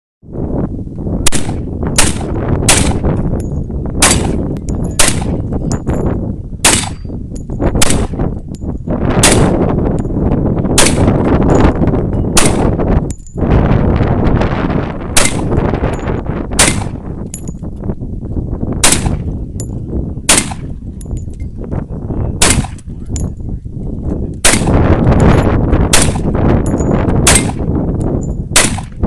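AR-15 semi-automatic rifle fired shot after shot, about two dozen single sharp cracks at roughly one a second with uneven gaps, over a steady low rumble.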